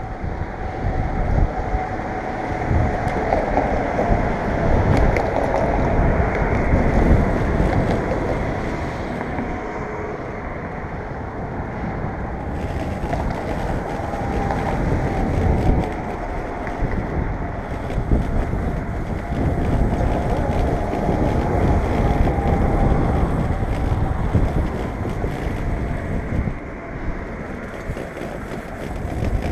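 Skateboard wheels rolling on a concrete sidewalk, a steady rough rumble, with wind buffeting the microphone.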